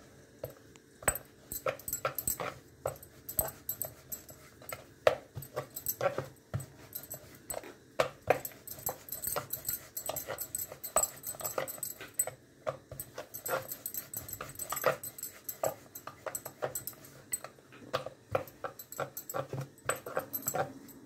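Rolling pin working dough on a wooden board, giving irregular knocks and clatter a few times a second as it rolls back and forth and is set down and picked up.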